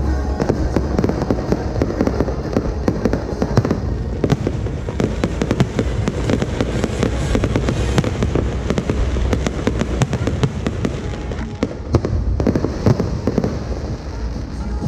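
Fireworks going off in a dense, rapid crackle of many sharp pops, with no let-up.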